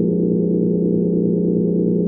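Steady, soft, low bunker-style hum: a sustained deep drone with a slight regular pulsing in its tone.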